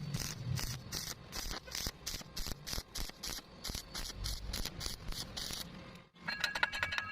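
Welding arc being struck in short on-off pulses, about three a second, each a brief crackling hiss. This is the stitch technique for filling a wide gap in thin sheet metal without burning through. It stops abruptly about six seconds in, and a short ringing, chime-like music sting follows.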